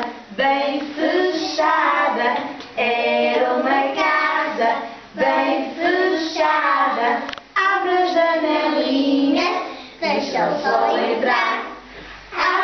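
A group of young children singing a Portuguese children's song in unison, with a woman's voice leading, in short phrases with brief breaks between them.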